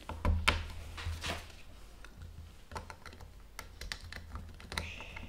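Plastic Lego Technic pieces clicking and rattling as they are picked through in a tray and pressed together: a scatter of small irregular clicks, the loudest in the first second or so.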